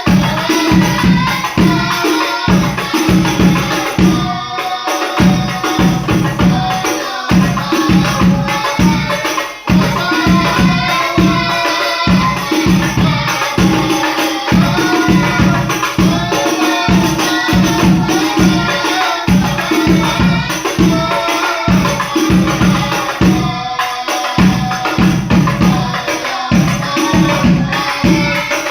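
Sholawat devotional singing accompanied by a steady beat of hand-struck frame drums with jingling tambourine-like percussion.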